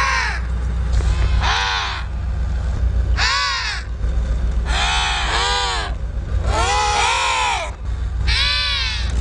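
Penguins calling: about six harsh squawking calls, each rising and falling in pitch and lasting under a second, roughly every one and a half seconds, over a steady low hum.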